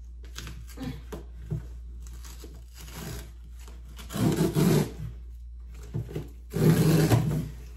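A cardboard shipping box being torn open by hand: small scrapes and taps on the cardboard, then two longer rips, about four seconds in and near the end, which are the loudest.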